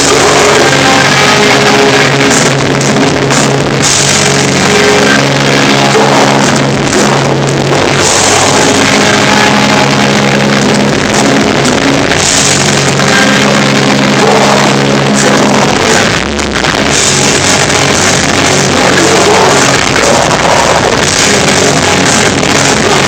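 Melodic hardcore band playing live: distorted guitars, bass and drums, loud and with poor sound quality. The sound briefly dips about sixteen seconds in.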